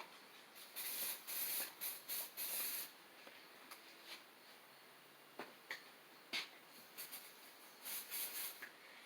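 Short hissing squirts from an aerosol can of PB Blaster penetrating oil, several in quick succession in the first three seconds and a few more near the end, with a couple of light clicks in between.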